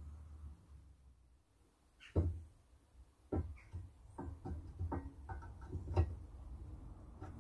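Steel parts of a vintage Tri-ang child's scooter knocking and clinking together as the frame and front fork are handled and fitted. There is one sharp knock about two seconds in, then a run of uneven clanks, some with a short metallic ring, the loudest near six seconds.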